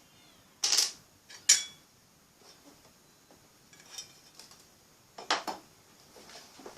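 Hard small objects clattering and clinking: two sharp clatters in the first two seconds, a faint click about four seconds in, and another clatter a little after five seconds.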